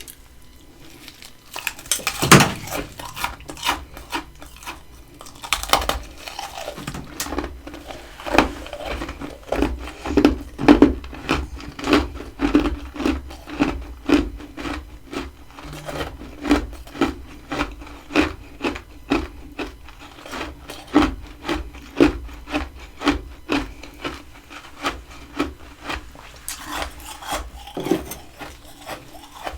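Freezer frost being bitten and chewed: a run of crisp, crunchy chews at a bit under two a second, with two louder bites near the start.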